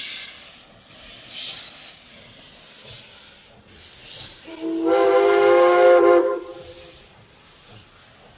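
Steam locomotive No. 81, a Baldwin 2-8-0, moving off slowly with steam chuffs and hisses about every second and a half. About halfway through it sounds its steam whistle: a chord of several tones held for about two seconds, the loudest sound here.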